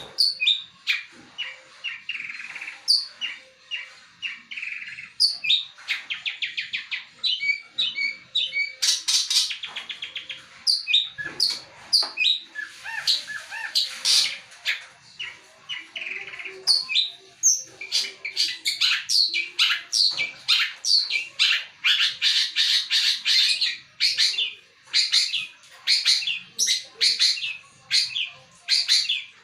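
Long-tailed shrike singing a long, almost unbroken song: a quick medley of sharp chirps, fast trills, whistles and harsh squawking notes, rich in mimicked calls.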